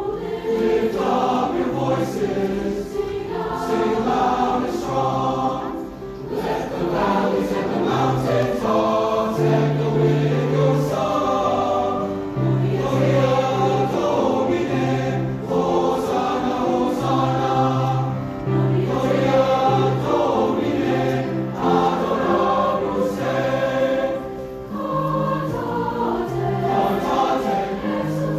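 School choir singing a choral piece, many voices together in continuous harmony.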